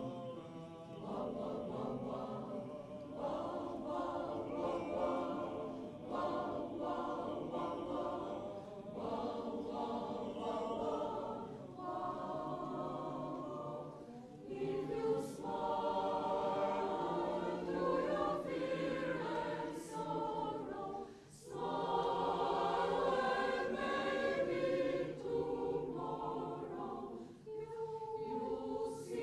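Mixed choir singing in several parts, phrase after phrase, with brief breaks between phrases.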